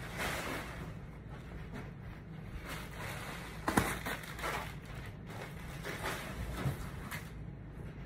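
Scattered handling noises as someone gathers up sneaker packaging: soft rustles and knocks, with a sharp knock about four seconds in, over a low steady hum.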